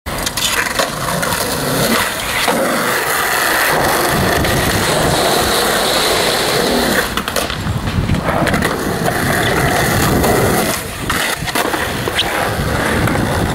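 Skateboard wheels rolling loudly over concrete, with sharp clacks of the board hitting the ground several times as tricks are popped and landed.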